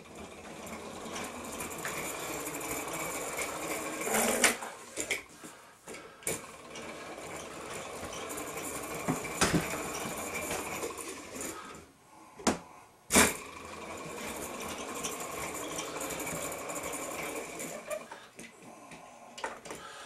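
Small hot-air Stirling engine toy car running along a countertop, its engine driving the wheels through a band: a fast, steady mechanical clatter. The clatter breaks off briefly a couple of times, and there are a few sharp knocks.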